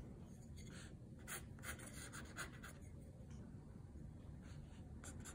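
Bamboo quill pen scratching faintly on paper as ink lines are drawn, in short separate strokes, the clearest between about one and two and a half seconds in.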